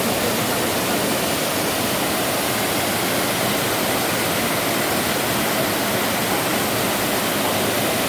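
Waterfall: white water cascading over several rock ledges in a steady, even rush.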